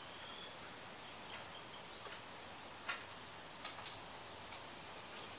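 A few light, irregular metallic clicks and ticks as a wing nut on the roof rack's solar panel mount is worked loose by hand. The sharpest click comes about three seconds in.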